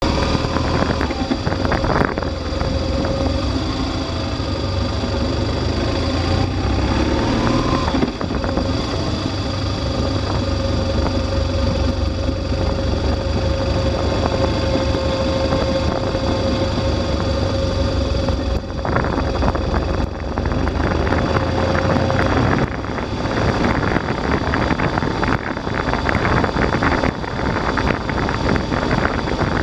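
Motorcycle engine running at low speed, its pitch rising once about seven seconds in. From about two-thirds of the way through, wind rushing over the microphone grows and covers the engine.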